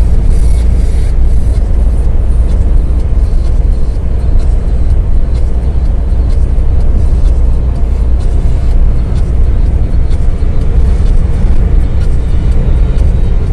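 Long-haul truck driving on the highway: a steady, loud low rumble of engine and road noise with no breaks.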